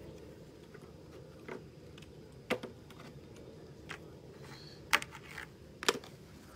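A handful of sharp clicks and taps over a low background hum, the loudest about halfway through and near the end.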